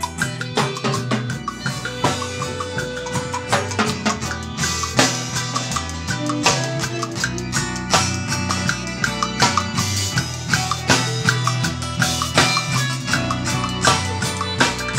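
A rock band playing live: a drum kit with cymbals beating under electric guitars.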